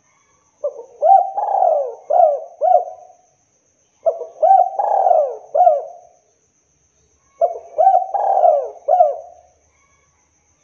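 Spotted dove (tekukur) cooing in three song phrases a few seconds apart, each a short run of low, rising-and-falling coo notes, in the 'kuk 2' song style.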